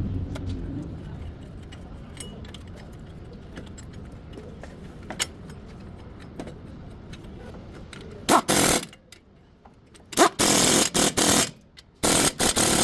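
Low workshop rumble with scattered clicks, then several short, loud bursts from a pneumatic air tool, some starting with a rising whine, during work on a GMC front wheel bearing.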